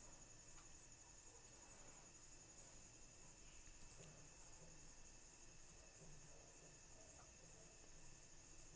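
Near silence: faint room tone with a steady high whine and faint high chirps repeating about twice a second.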